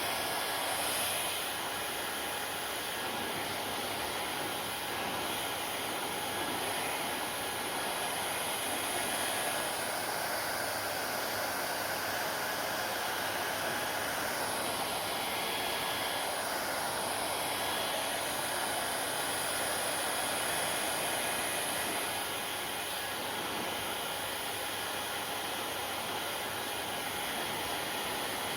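Hair dryer running steadily: an even rushing hiss of its fan and airflow, with faint steady tones over it.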